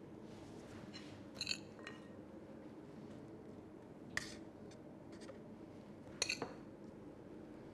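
A few light metallic clinks and taps: rolled wafer biscuits being pressed upright against the inside wall of a stainless steel adjustable cake ring. They come about a second and a half in, around four seconds and just after six seconds, over a low steady hum.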